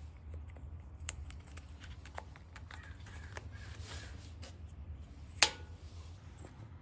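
Light clicks and taps of wooden pieces being handled, with one sharp click about five and a half seconds in, over a low steady hum.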